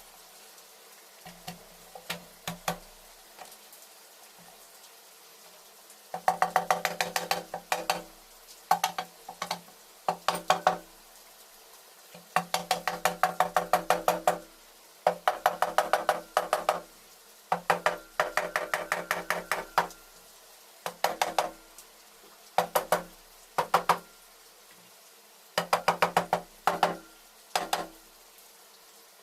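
Runs of rapid, ringing knocks, several a second, in bursts of one to three seconds with short pauses, typical of hand-tool work on metal engine parts.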